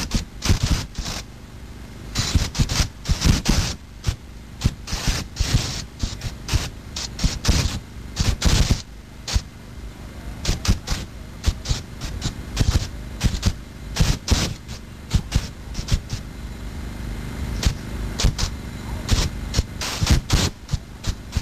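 Propane flame effects firing fireballs in quick, irregular volleys of sudden blasts. The volleys thin out in the middle and pick up again near the end.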